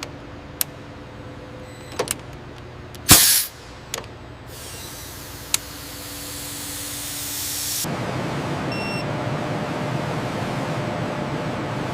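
Industrial machinery noise: a low steady hum with scattered sharp clicks and a short loud burst of hissing air about three seconds in, then a steady rushing noise that rises in about eight seconds in and holds.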